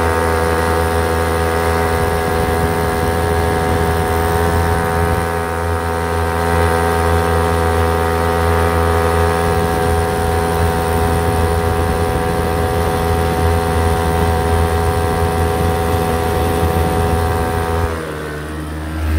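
Hangkai 3.5 hp two-stroke outboard motor running steadily at a constant fast speed. Near the end it slows, its note dropping lower and quieter.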